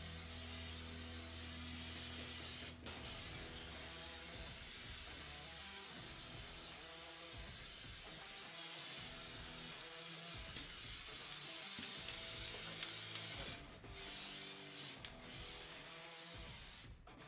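Continuous spray hiss of a coating being sprayed, broken by short pauses about three seconds in and a few times near the end.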